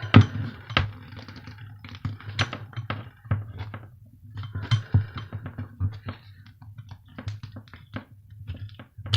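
Cutters snipping through an electric heater's mains flex to remove the plug, then the plug and tools being handled: scattered sharp clicks and knocks with a few short scrapes, over a low steady hum.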